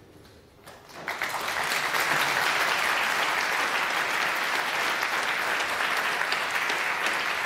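Audience applause in a lecture hall, starting about a second in and going on steadily, at the end of a talk.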